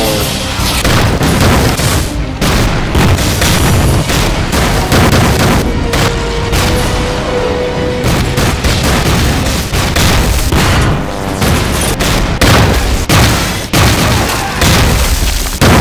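Film battle sound effects: repeated shell explosions and bursts of rifle and machine-gun fire, one after another, over background music.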